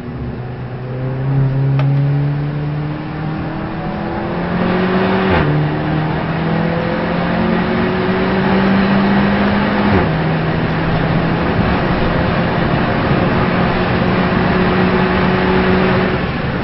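Race car engine heard from inside the car, accelerating and climbing in pitch, with two upshifts, about five and ten seconds in, where the pitch drops suddenly, then pulling steadily again. Road and tyre noise runs underneath.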